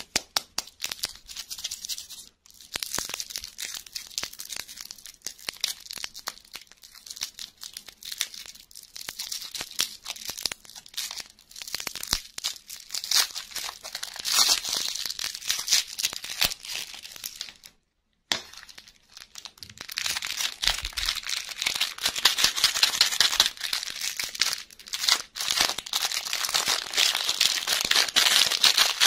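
Shiny plastic lollipop wrapper being crinkled and peeled off by hand, then a small clear plastic toy bag handled in the fingers: dense crackling that stops briefly once about two thirds of the way through.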